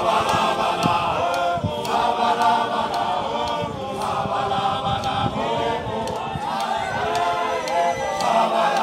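A large group of men singing together in chorus, unaccompanied, with a few sharp percussive strikes now and then.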